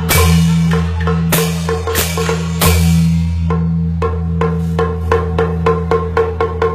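Beiguan percussion ensemble playing: drums struck with sticks and crashes of small hand cymbals, with a low steady tone underneath. The cymbal crashes fall in the first few seconds, then the drum strokes run quicker, about three or four a second, toward the end.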